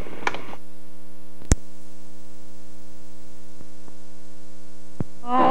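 Steady electrical hum with many evenly spaced overtones and some static, carried on the camcorder's recording. A sharp click comes about a second and a half in, and another near the end.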